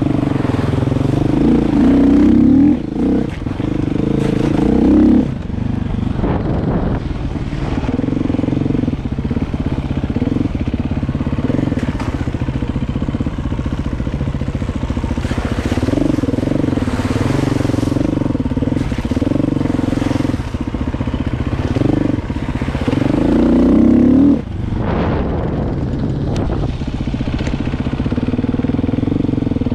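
Motorcycle engine running under way, its note steady but swelling louder a few times and dropping back sharply.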